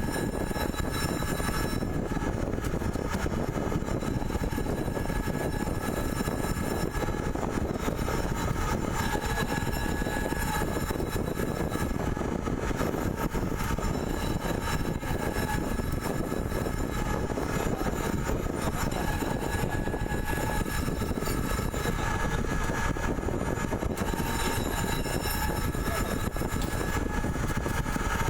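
CNC pipe-threading machine running, a steady mechanical drone with a faint high whine that holds the same pitch throughout.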